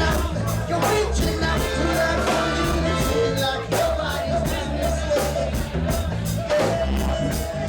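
Live reggae band playing, with steady drums, a prominent bass line, guitar and singing.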